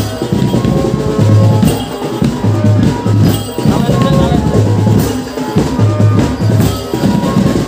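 Indonesian marching drum band playing live: a steady beat of bass drums and percussion, with a tune carried over the drums.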